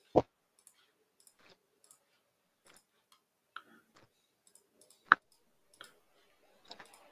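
Scattered faint clicks and taps, with two sharper clicks, one right at the start and one about five seconds in.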